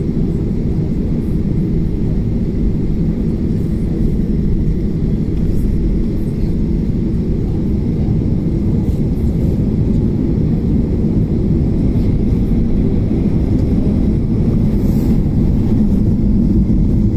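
Airliner's jet engines and the plane's steady low rumble during the takeoff run, growing slightly louder toward the end.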